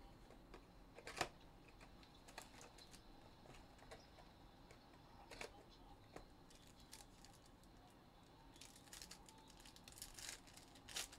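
Faint handling of a cardboard trading-card hobby box, with a sharp click about a second in, then a cluster of crinkles near the end as a foil Panini Crown Royale card pack is torn open.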